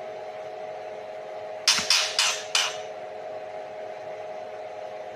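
Four short, sharp clinks in quick succession, about a third of a second apart, over a steady mechanical hum.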